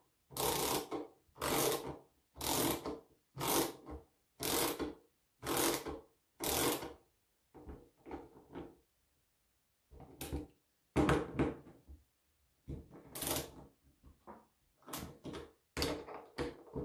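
Plastic parts of a Husqvarna brushcutter throttle control handle being worked and fitted by hand, giving scraping, clicking strokes about once a second, then shorter, more irregular clicks and rattles.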